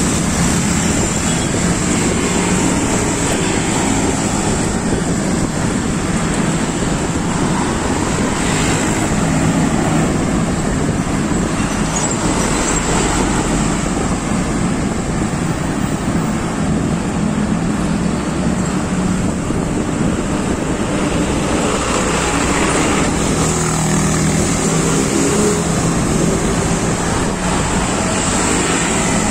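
Steady rush of wind over the microphone from a moving ride, mixed with the engines and tyres of road traffic.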